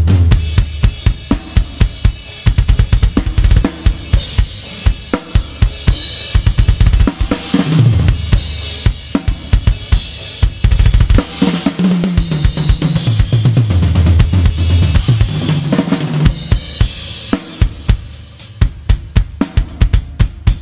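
Drum kit played in a steady groove: bass drum, the Goliath snare's backbeat picked up by a microphone under the snare, and cymbals washing over the beat in places. Near the end the playing thins out to sharper, separate strikes.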